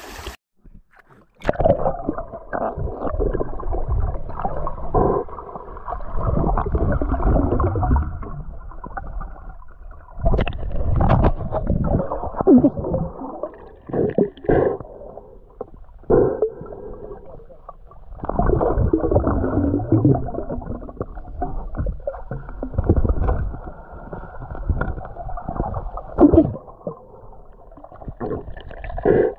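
Muffled sloshing and gurgling of river water, with irregular surges and knocks from movement in the water.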